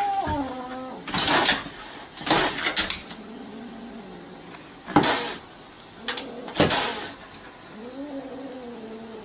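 A kitten hissing and spitting in several sharp bursts at a dog, with a dog's whine at the start and another whining cry near the end.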